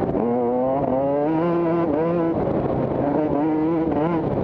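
Motocross bike engine accelerating hard, its pitch climbing and dropping back at gear changes about two seconds in and again near the end.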